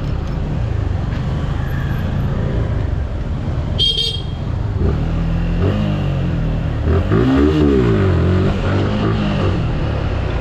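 Suzuki Gixxer motorcycle engine pulling away and accelerating, its revs rising and falling several times through the gears. A horn toots briefly about four seconds in.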